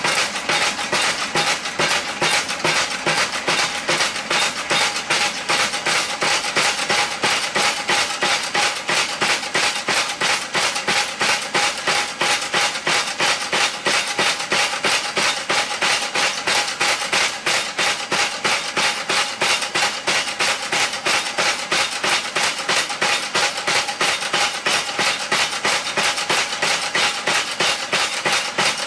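Homemade belt-driven power hammer, run by a half-horsepower motor, pounding a hot railroad spike in a fast, even rhythm of metal-on-metal strikes. A steady hum sits underneath the blows.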